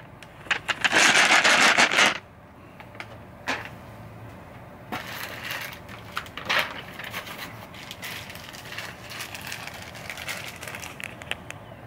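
Small plastic zip bags of pinball parts crinkling and rustling as they are handled, loudest in a dense burst about a second in, with scattered clicks and knocks and lighter crackling after.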